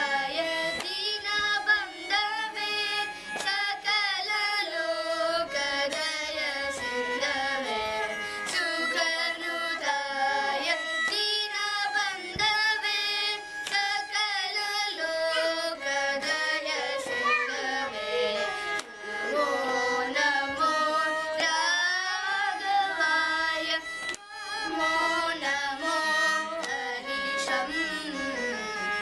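Children singing a Carnatic devotional song in unison, accompanied by a bowed violin that follows the melody, the voices gliding and ornamenting around each note.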